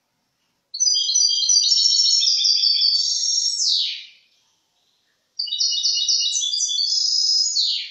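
European goldfinch singing two fast twittering phrases of high notes, each a little over three seconds and ending in a falling slur.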